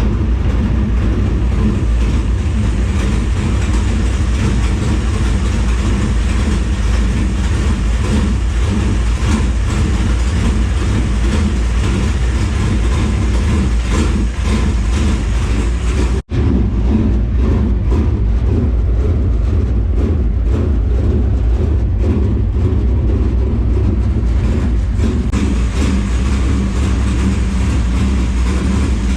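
GM 602 crate small-block V8 in a dirt late model race car running steadily, cold and freshly started after the off-season, sounding healthy. The sound cuts out for an instant about sixteen seconds in.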